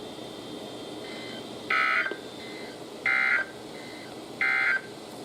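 NOAA Weather Radio SAME end-of-message signal: three short, identical bursts of digital data tone about 1.4 seconds apart, over faint radio hiss, marking the end of the warning broadcast.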